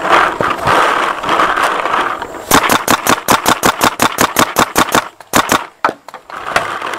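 Paintball marker firing a fast string of shots, about seven a second for roughly two and a half seconds, followed by a few single shots. It is preceded by about two seconds of loud rushing noise.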